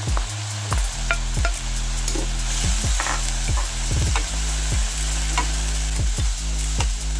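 Green peas, diced carrots and shrimp sizzling in a hot pan while a wooden spatula stirs them, with repeated short scrapes and knocks of the spatula against the pan over a steady hiss.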